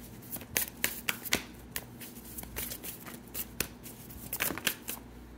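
A tarot deck being shuffled by hand: quick papery card snaps and clicks in irregular bunches with short pauses.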